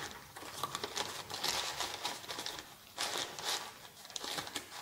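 Paper crinkling and rustling in irregular bursts as a sheet of margarine-wrapper paper is rolled and folded into a piping cone.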